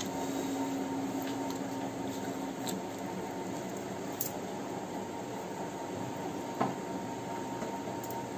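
A person eating rice by hand: chewing and fingers working food on a plate, with two short sharp clicks, over a steady background hum.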